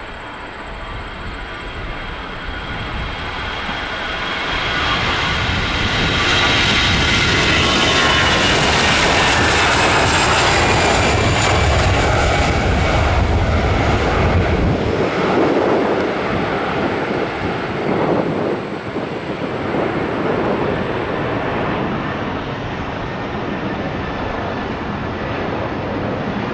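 Jet engines of an Airbus A320 passing close by: they grow louder to a long peak, with whining tones falling in pitch and a deep rumble as the plane goes past, then ease off. In the last few seconds a different A320's engines are heard.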